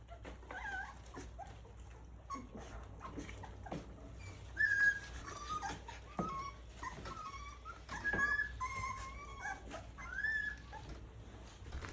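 Three-week-old Rottweiler puppies whimpering and squeaking in short high-pitched whines, several at once, as they crowd in to eat mush, with small wet clicks and smacks throughout.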